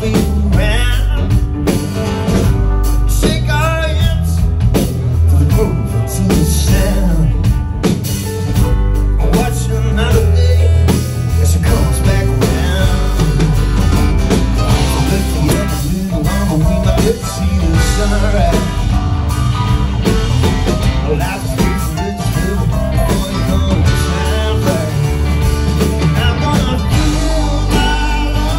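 A live rock band playing a song: electric guitar, bass guitar and drums, with a man singing lead into the microphone for parts of it.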